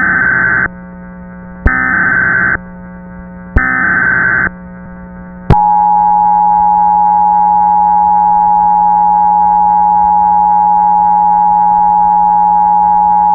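Emergency Alert System SAME header: three short bursts of warbling digital data tones about two seconds apart. After them the two-tone EAS attention signal comes on and sounds steadily for about eight seconds, over a faint steady hum.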